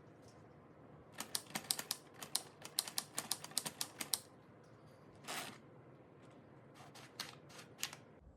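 Keys of a LEGO Ideas Typewriter (21327) being pressed in quick succession, a rapid run of light plastic clicks. There is a short swishing slide about five seconds in and a few more scattered key clicks near the end.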